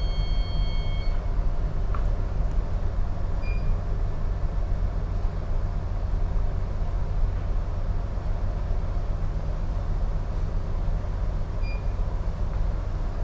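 Ship's engine and machinery drone heard on the bridge while under way at slow ahead: a steady low hum. An electronic tone stops about a second in, and short faint beeps from bridge equipment sound twice later.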